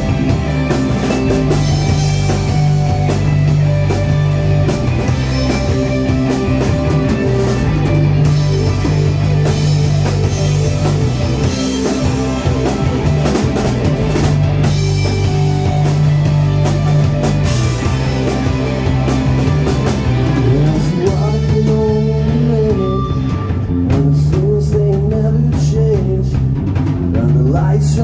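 Live rock band playing, with drum kit, bass and electric guitar, and a singing voice. The low bass end drops out for a couple of seconds past the middle, then comes back in.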